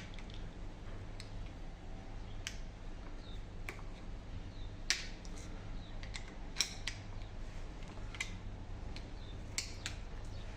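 Scattered sharp metal clicks and clinks of steering-rack parts and tools being handled, about eight over several seconds, over a steady low hum.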